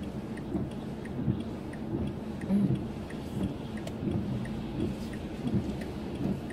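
Car turn signal ticking steadily, about three clicks a second, over the low rumble of the car's cabin.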